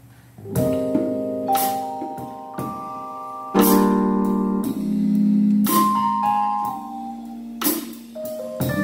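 Live band intro starting about half a second in: an electric keyboard plays slow sustained chords, with a few ringing cymbal strikes at the chord changes.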